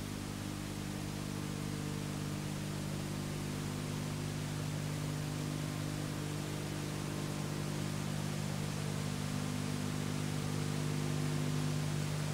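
Steady electrical hum under an even hiss, the noise floor of an old analogue video recording with no programme sound. It grows slightly louder near the end.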